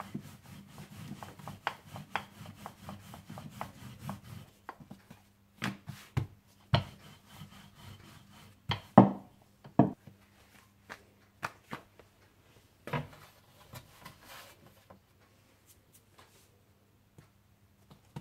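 Rolling pin rolling pita dough out into a flat round, a steady rubbing for about four seconds, then scattered knocks and taps as the dough and pin are handled and set down, the loudest about nine seconds in.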